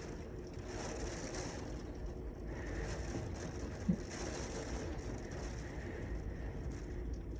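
Steady rain falling, an even hiss over a low rumble, with a brief low blip about four seconds in.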